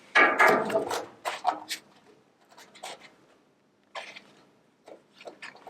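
Sheet-metal repair pieces being handled: a rough scrape lasting about a second at the start, then scattered light taps and clicks.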